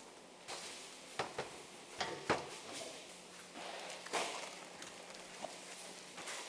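Plastic-wrapped blocks of pork being handled and packed into a cardboard box: plastic crinkling, with a handful of sharp knocks as the blocks and box are set down.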